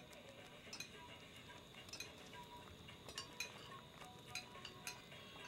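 Spoons clinking faintly against ceramic soup plates while people eat, scattered light clinks about every half second to a second.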